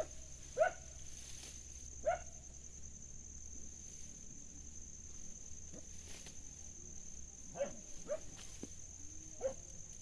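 Short rising animal calls, six in all, three near the start and three near the end, over a steady high-pitched insect drone.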